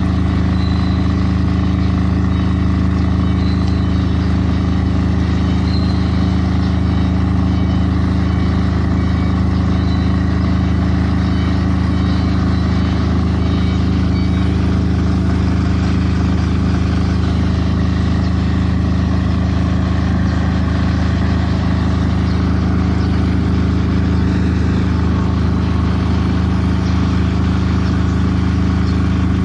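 Diesel generator in a silent-type soundproof canopy running steadily, a constant low engine drone that holds the same pitch and level throughout.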